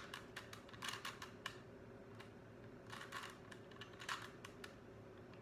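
Plastic 3x3 Rubik's Cube being turned by hand: faint, irregular clicks as its layers are twisted, in quick flurries in the first second and a half and again around three and four seconds in.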